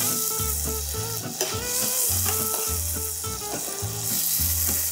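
Boiled pretzel dumplings, still wet, sizzling in a frying pan of hot butter with breadcrumbs and almond slivers as they are spooned in and stirred. Background music with a steady beat plays under the sizzle.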